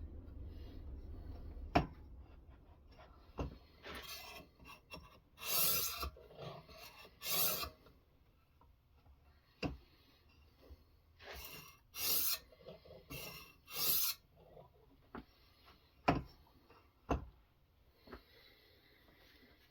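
Sharpening stone on a guided knife-sharpening system rasping along a knife blade in a series of separate strokes, with a few sharp clicks between them.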